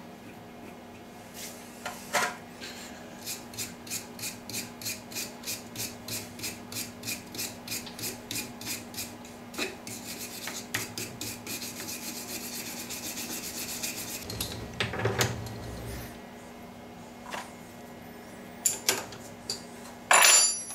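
Brass wire brush scrubbing a freshly knurled workpiece in a lathe chuck, in regular strokes about three a second, then faster, denser scrubbing. A low thump comes about 15 seconds in, and a few sharp clicks come near the end.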